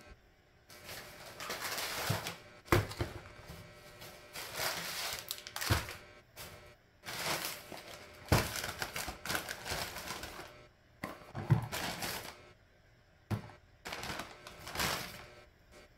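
Groceries being unpacked and set down on a table: plastic shopping bags rustling and crinkling in bursts, broken by sharp knocks as cans, a pouch and boxes are put down, about five of them.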